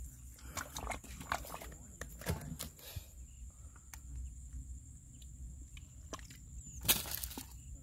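Bare hands digging and scraping in a hole in dry, cracked mud: irregular scrapes and crumbling clods, with one sharper knock near the end.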